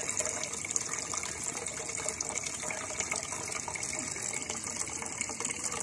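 Water pouring in a steady stream from a jug into an aluminium pot of rasam, splashing into the liquid already in the pot.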